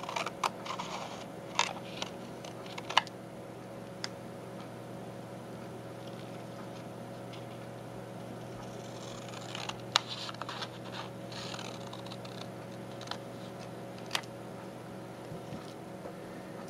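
Scissors cutting thick paper paint sample cards: scattered sharp snips with crisp scraping and rustling of the card between them, the sharpest about 3 s and 10 s in. A steady low hum runs underneath.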